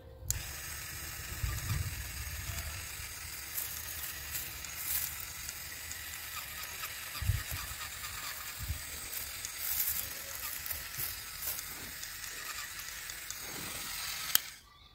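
Small battery-powered DC gear motor of a homemade toy chainsaw running, its blade rattling and scraping against a shrub's twigs as it cuts. It stops with a sharp click near the end.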